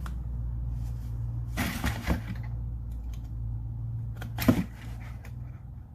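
Hand tools and packaging being handled: a rustle about two seconds in and a sharp metallic click about four and a half seconds in, over a steady low hum.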